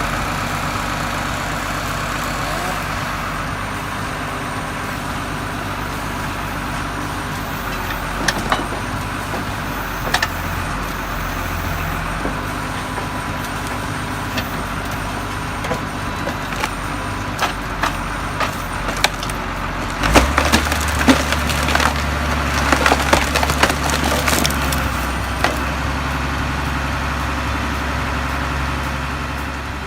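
Narva H60 firewood processor at work: its engine and hydraulics run steadily under scattered sharp cracks and knocks of logs being cut and split. About two-thirds through, the engine's low hum grows louder and a run of cracks follows.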